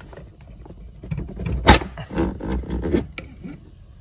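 Wires being dragged up through car carpet with a flexible grabber tool: rustling and scraping against the carpet, with a sharp snap about a second and a half in.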